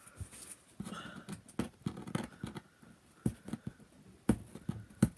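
Cellophane wrapping picked off a box by hand, crinkling with irregular crackles and clicks.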